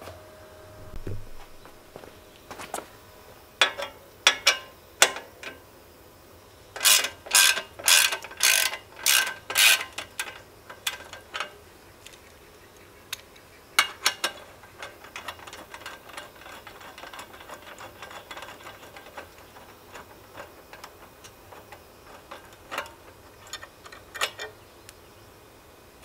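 Hand tool working the bolt that holds the baffle insert in a Yoshimura muffler on a Honda CB400Four, making sharp metallic clicks. A run of about eight quick clicks comes near the middle, with scattered clicks and taps before and after.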